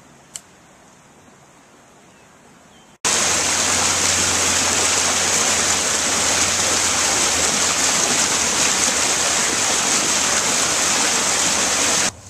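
Loud, steady rushing hiss that starts abruptly about three seconds in and cuts off sharply just before the end, after a quiet stretch with one faint click.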